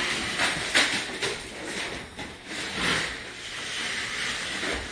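A hand tool scraping a surface in irregular strokes, a continuous hissing rasp.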